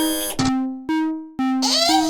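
Synthesized chime alternating between a lower and a higher note, each struck sharply and fading, about two a second. Near the end, a warbling sound that rises and falls over and over comes in.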